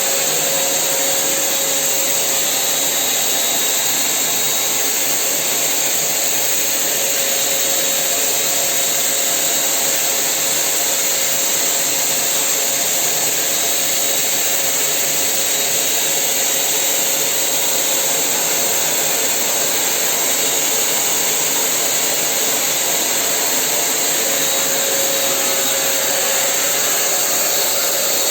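A power tool running steadily: a loud, even hiss with a faint whine under it.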